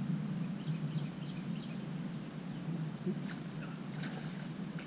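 Steady outdoor background noise with a few faint bird chirps about a second in. Light water splashing near the end as a hooked bass breaks the pond's surface.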